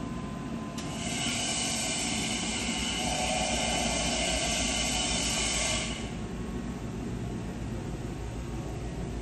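A loud, steady gas hiss switches on about a second in and cuts off suddenly about six seconds in, joined partway through by a lower rushing tone, over a steady machine hum. It fits the assist-gas jet at the cutting head of a 2014 Amada FOL 3015 AJ 4 kW fiber laser cutter during a cut.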